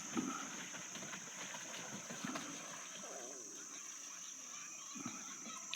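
Steady high-pitched chorus of evening insects, such as crickets, with faint distant voices in the background.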